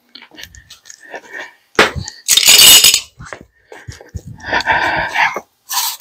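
Metal hand tools clinking and rattling as a pair of vice grips is fetched and worked onto the clamp, with a loud clatter about two seconds in and another rattle near five seconds.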